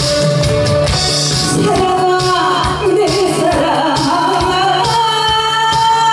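Woman singing a Korean song through a microphone over amplified backing music with a steady beat. Her voice comes in about a second and a half in, after a short instrumental passage.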